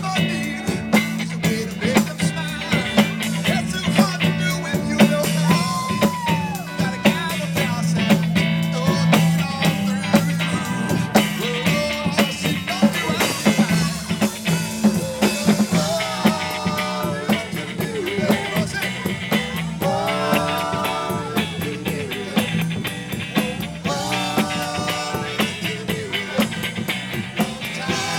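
Live rock band playing: electric guitars over a drum kit, steady and loud.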